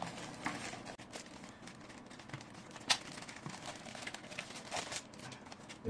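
Thin plastic wrapping bag rustling and crinkling softly as a router is slid out of it by hand, with one sharp tick about three seconds in.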